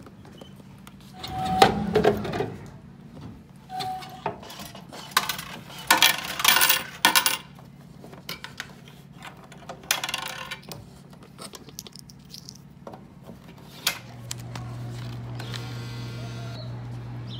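Knocks and clatter at a vending machine's delivery door as a drink is taken out. About fourteen seconds in, a steady low motor hum starts as the machine's bill acceptor draws in a five-dollar bill.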